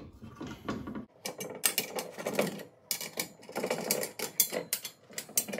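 Allen key tightening the bolts on a steel rotisserie stand: quick, irregular metallic clicks and short scrapes as the key is turned and reset in the bolt heads, with a brief pause about a second in.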